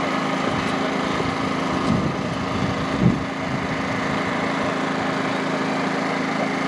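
A small engine running steadily at a constant pitch, with a couple of soft knocks about two and three seconds in.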